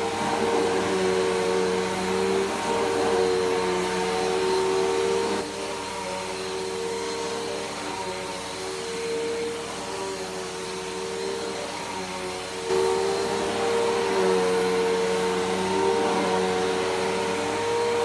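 Bissell PowerForce Helix Turbo upright vacuum running steadily as it is pushed over a fabric sheet, a motor whine with a rush of suction noise. It gets a little quieter for several seconds in the middle and comes back up about two-thirds of the way through.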